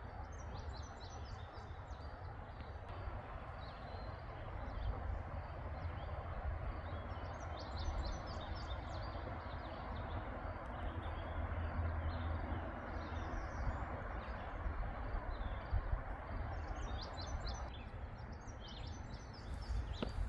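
Birds chirping in a few short clusters of high notes, over a steady outdoor rushing noise with a low rumble.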